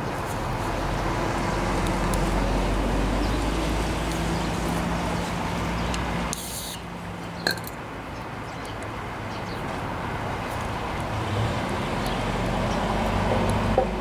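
Steady rumble of passing road traffic that swells and fades, with a brief hiss a little past halfway and a few faint clicks of a steel pick working inside a small-engine carburetor.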